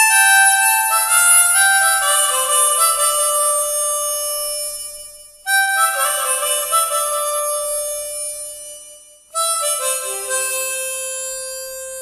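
Ten-hole harmonica playing descending runs of single notes that ring into one another. Fresh runs start about five and nine seconds in, each fading out on a long held low note.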